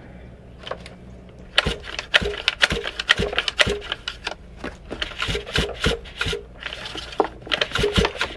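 Pull-start recoil starter on a 50cc Chinese pit bike engine, yanked several times: each pull brings a quick rattle of clicks and a short whirr as the engine turns over, and it never catches.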